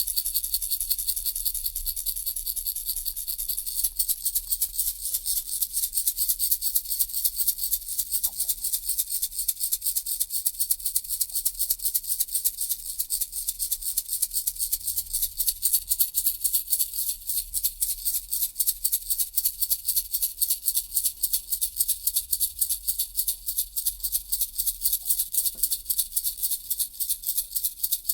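Baby rattle shaken steadily in an even, quick rhythm, its beads giving a bright, hissy rattle.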